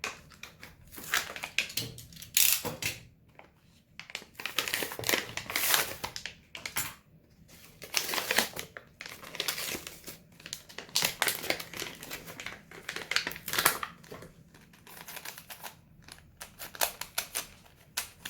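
Plastic packaging crinkling and rustling as a boxed Rubik's cube is unwrapped by hand, in irregular bursts mixed with sharp clicks.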